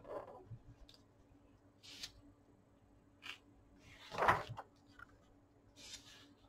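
Hands handling the glossy pages of a large hardback book: light brushes of skin and paper, then one louder page turn about four seconds in, and another soft brush of paper near the end.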